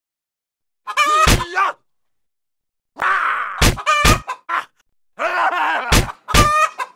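Cartoon karate-chicken sound effects: squawking cries in three bursts, each punctuated by one or two sharp whacking hits, with silence in between.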